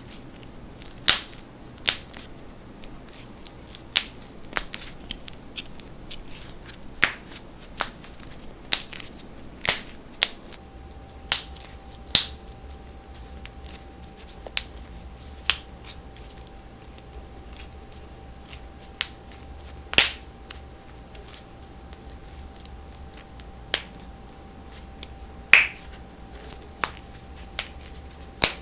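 Knuckles cracking: a long series of single sharp pops at irregular intervals, about twenty in all, with the loudest pops about two-thirds of the way through and near the end.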